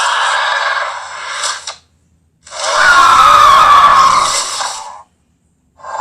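Creature screeches made by blending eagle calls with Pyroraptor dinosaur sound effects: a raspy, hissing call, a short gap, then a louder screech whose pitch slowly falls. A third call begins near the end.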